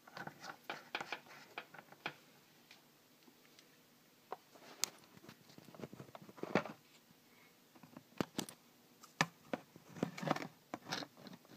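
Irregular small clicks, taps and scrapes of hands handling laptop parts, the heatsink being fitted back over the newly pasted CPU. The sharpest clicks come in a cluster past the middle and again near the end.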